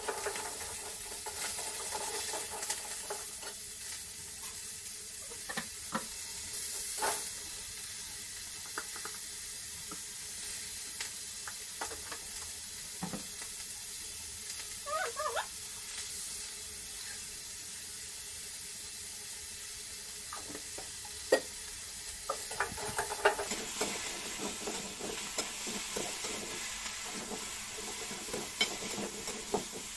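Raw mango pieces sizzling in hot oil in a small metal wok, with scattered clicks and scrapes of a metal spatula against the pan as they are stirred. The sizzle grows louder about 23 seconds in.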